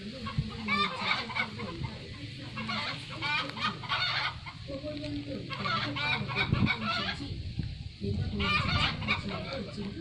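Chickens clucking in runs of short, quickly repeated calls, over a steady low hum.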